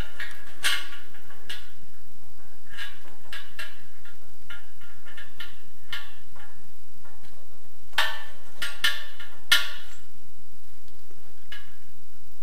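Scattered light metallic clicks and taps from handling a chrome kitchen faucet while screwing a braided flexible supply hose into its base by hand. The loudest cluster of clicks comes about eight to ten seconds in.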